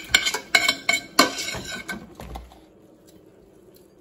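Metal cutlery clinking against dishes: a quick run of sharp clinks with a short ring, stopping about two seconds in.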